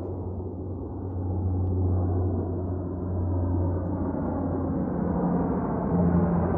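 Lockheed C-130 Hercules turboprops droning as the aircraft approaches: a deep, steady propeller hum that grows gradually louder and brighter.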